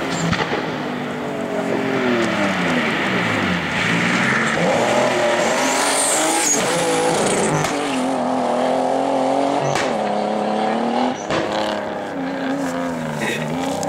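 Rally car engines revving hard through a corner, the pitch climbing and dropping repeatedly with throttle and gear changes. One of the cars is a BMW E30 rally car.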